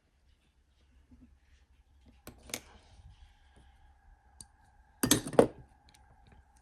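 Small metal clicks and ticks of a hand tool working the grub screw of the MN99s crawler's front differential gear, tightening the loose diff gear on its shaft. About five seconds in there is a short, loud rush of noise.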